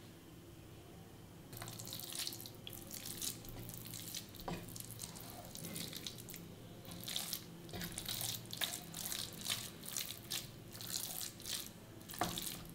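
A spatula stirring and mashing thick, sticky sweet pongal in a pressure cooker pot: irregular wet squishing and scraping strokes against the pot, starting about a second and a half in.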